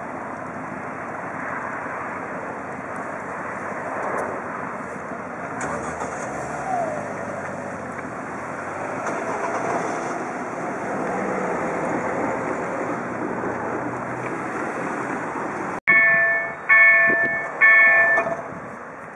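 Steady road traffic as cars and a motorcycle drive over the crossing. After a sudden cut near the end come three loud ringing dings about a second apart, each dying away: the electronic warning bell of a railway crossing, EDE-1 type.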